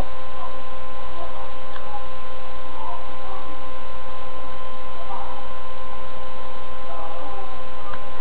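Steady electrical hum made of several constant tones over an even hiss, with faint scattered blips.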